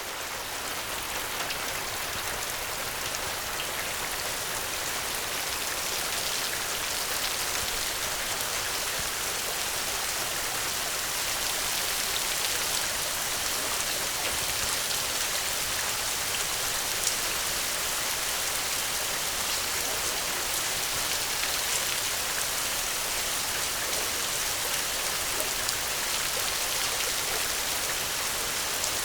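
Steady heavy rain falling, a dense even hiss with scattered drop ticks, swelling in over the first second and then holding level.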